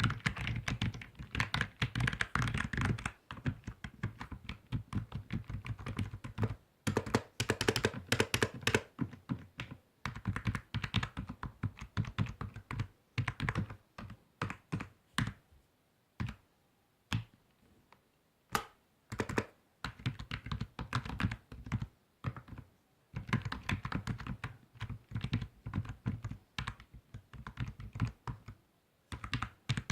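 Typing on a computer keyboard: runs of rapid keystrokes broken by short pauses, with slower, separate key presses around the middle.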